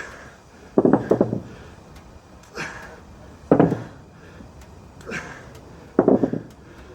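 Heavy breathing in a slow, even rhythm, about one breath every two and a half seconds: each cycle pairs a short, airy breath with a louder, rougher, lower one, three cycles in all.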